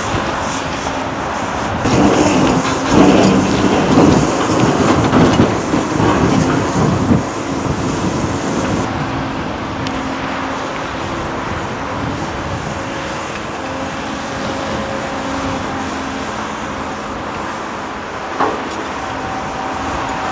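Large Caterpillar hydraulic excavator's diesel engine working under load as its rock bucket digs into a pile of broken rock. It is loudest for about five seconds from two seconds in, with rocks grinding and clattering against the bucket. After that the engine runs steadier, with one short knock near the end.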